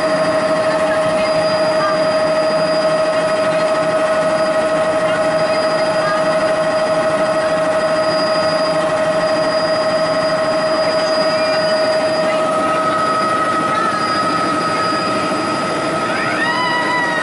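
Helicopter in flight just after lift-off, heard from inside the cabin: a loud, steady engine whine over the drone of the rotor. A short rising tone comes in near the end.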